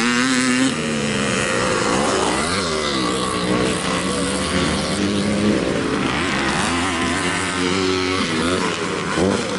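Several vintage motocross motorcycles racing on track, their engines revving up and down as they accelerate and shift, the pitches overlapping.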